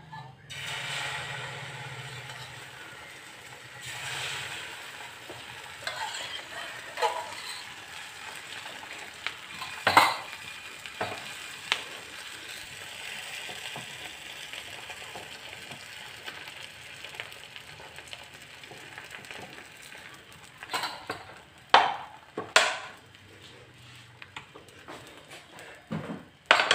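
Egg and bread frying in ghee in a non-stick pan: a steady sizzle. A few sharp knocks of a utensil come through it, one about ten seconds in and several near the end.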